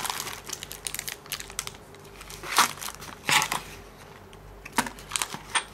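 Crumpled packing paper and a cardboard parts box rustling and crinkling as a hand rummages inside it. It is an irregular run of crackles, with louder crinkles about two and a half and three and a half seconds in.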